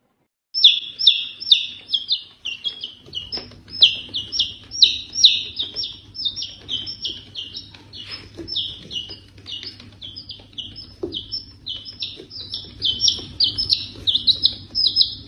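A small chick peeping over and over in rapid, evenly spaced high peeps, about three a second.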